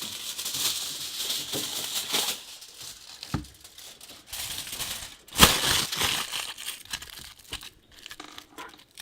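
Crinkly material scrunched up by hand as a Foley effect: a run of crackling for the first couple of seconds, then a second, louder scrunch about five seconds in.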